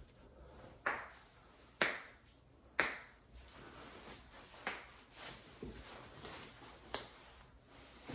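Joints being cracked by hand: three sharp pops about a second apart, followed by a few fainter cracks.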